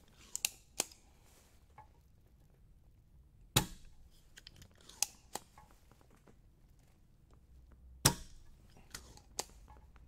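Spring-loaded desoldering pump (solder sucker) firing, sucking molten solder out of through-holes on a circuit board: two sharp snaps about four and a half seconds apart, with lighter plastic clicks around them.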